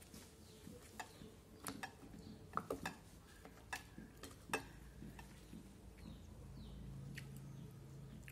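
Wooden chopsticks clicking and scraping against a stainless steel bowl, in a series of light, irregular clicks, several close together in the first half and one more near the end. A faint low hum comes in about six seconds in.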